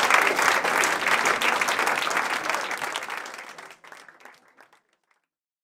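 A small audience applauding and clapping, the applause dying away to nothing about four to five seconds in.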